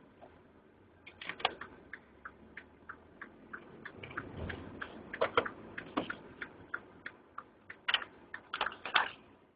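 Light ticking inside a moving car, about three ticks a second, with a few louder knocks among them.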